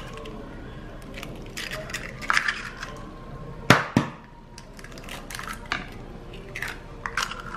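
Eggs being cracked into a small plastic bowl: sharp taps of shell against the rim and shells being pulled apart. The loudest is a pair of knocks near the middle, with lighter clicks before and after.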